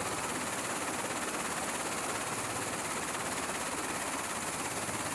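SH-60 Seahawk helicopter running on deck with its rotor turning: a steady rush of turbine and rotor noise.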